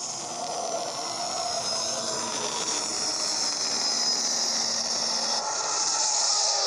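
Sci-fi spacecraft engine sound effect: the steady jet-like rumble and hiss of an Imperial Lambda-class shuttle's engines as it descends, changing abruptly about five and a half seconds in.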